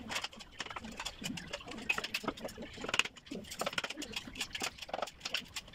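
Light, irregular clicks and taps of hand-tool work on a wooden box frame, with faint voices in the background.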